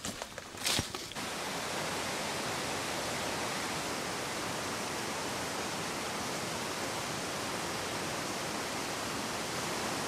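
A steady, even rushing noise that sets in about a second in and holds at one level, after a few brief clicks.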